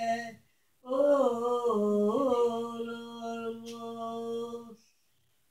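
Elderly woman singing unaccompanied in Turkish. After a short breath, she sings one phrase with a few turns in the melody that ends in a long held note, which breaks off near the end.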